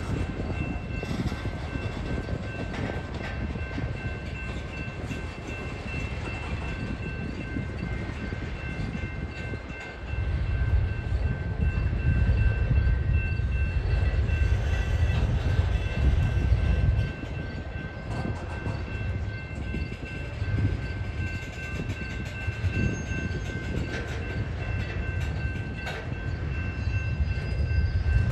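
Covered hopper cars of a Norfolk Southern mixed freight train rolling past, their wheels rumbling on the rails, with a steady high-pitched ringing tone throughout. A louder low rumble sets in about ten seconds in and drops back about seven seconds later.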